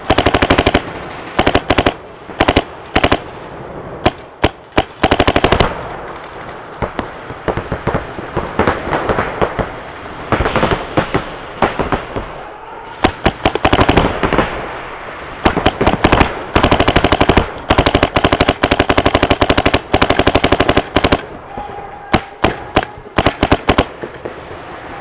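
Paintball markers firing in rapid strings, several shots a second, in repeated bursts with short gaps between them.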